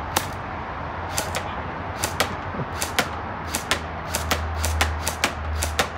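Airsoft rifle firing single shots in quick, uneven succession: a string of sharp snaps, a few a second and coming faster after the middle, with BBs striking a cardboard box.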